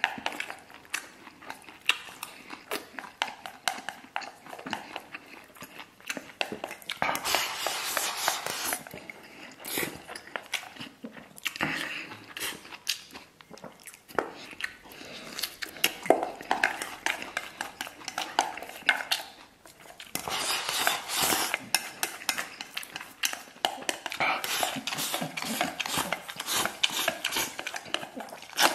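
Close-up eating: wooden chopsticks clicking and scraping against a stainless steel bowl as rice is shoveled into the mouth, in bursts of a few seconds, with chewing and bites of raw garlic cloves in between.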